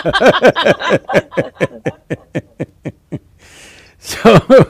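Laughter: a quick run of short laughs that fades over about three seconds, a breath, then two or three louder laughs near the end.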